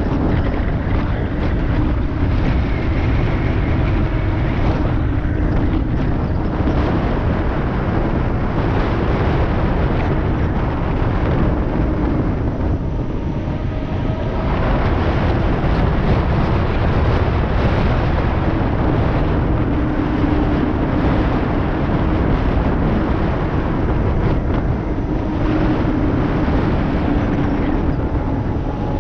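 Loud, steady wind rush on the camera microphone from riding at around 40 km/h. Under it is a faint hum from a knobby fat tyre rolling on asphalt, wavering in pitch.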